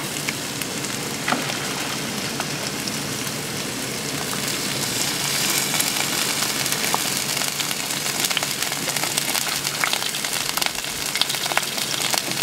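Lobster halves and sliced zucchini sizzling on a hot barbecue plate: a steady hiss with scattered crackles, louder from about four seconds in as more lobster goes onto the plate.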